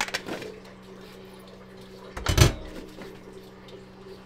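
Plastic bowl and colander knocked and set down at a stainless-steel kitchen sink: a couple of light clicks at the start and one loud knock a little over two seconds in, over a steady low hum.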